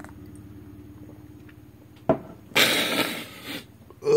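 A man gagging and coughing after a sip of hot water with apple vinegar. A sudden catch in the throat comes about two seconds in, then a loud, harsh cough-like exhale of about a second, and a voiced gag right at the end.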